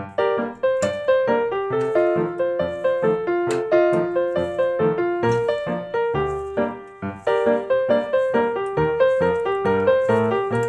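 Background piano music: a steady flow of notes, each struck and fading, several a second.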